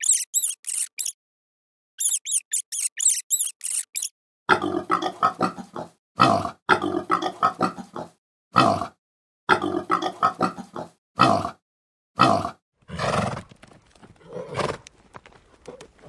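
A rat squeaking in two quick runs of sharp, high squeaks. Then about four seconds in, a pig starts grunting in repeated bouts, and this goes on for some eight seconds. Near the end a duller, separately recorded animal sound begins.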